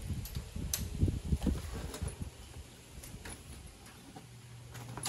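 Folding bike trailer being handled and stowed: a few sharp clicks and knocks of its frame over low rumbling that dies down after about two seconds.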